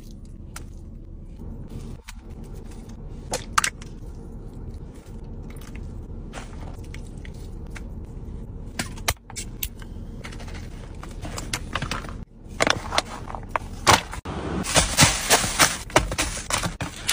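Eating and food-handling sounds over a steady low hum: scattered soft clicks and smacks as hands pull at meat and rice, then a dense run of crackling and sharp clicks in the last few seconds, the loudest part.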